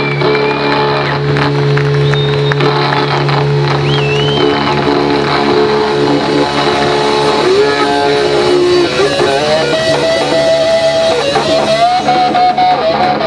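Live rock band playing an instrumental passage with electric guitar and bass. The guitar holds and bends notes, and a climbing lead line takes over in the second half.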